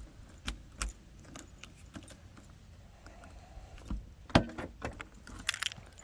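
Irregular clicks and knocks of small hard objects being handled, a few of them metallic, with the loudest knock about four and a half seconds in.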